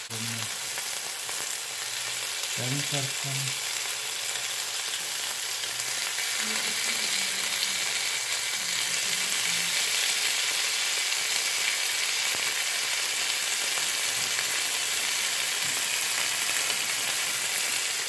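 Marinated chicken skewers frying in butter on a nonstick grill pan: a steady sizzling hiss that grows somewhat louder about six seconds in.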